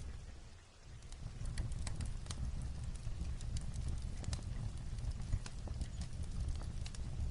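Light rain on a roof mixed with a wood fire crackling: irregular sharp pops and ticks over a steady low rumble. The level dips briefly near the start and comes back up.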